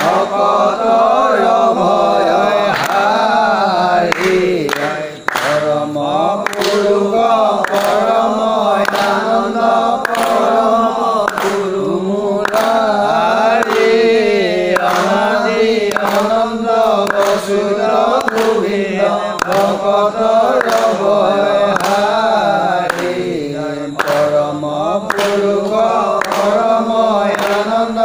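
Assamese naam-prasanga devotional chanting: voices singing a repeating melodic line. Sharp percussive strikes keep a steady beat, roughly one every 0.7 seconds.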